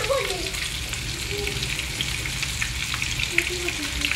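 Pieces of fish frying in hot oil in a pan: a steady sizzle dotted with many small crackling pops.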